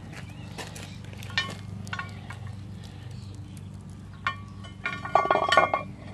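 Cast-iron Dutch oven lid being set onto the pot with a lid lifter. A few faint knocks come first. From about four seconds in there is a cluster of metal-on-metal clanks and scrapes with a short ringing tone.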